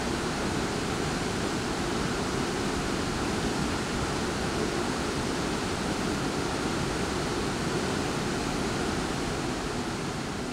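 Ohtamış Waterfall, a 30-metre fall, and the rocky stream below it: a steady, unbroken rush of falling water.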